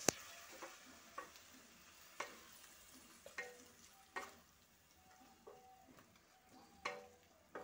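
A spatula stirring cabbage and potato curry in a metal kadai, scraping and knocking against the pan about eight times at irregular intervals, some knocks leaving a short ring from the pan, over a quiet sizzle from the simmering curry.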